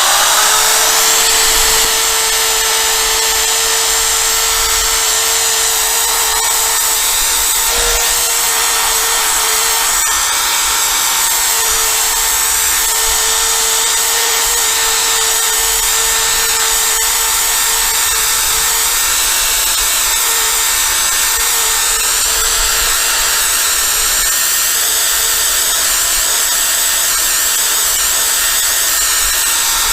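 Electric drill spinning a 3M headlight-restoration sanding disc, wet sanding a windscreen: a steady motor whine that spins up at the start, runs without a break and stops at the end.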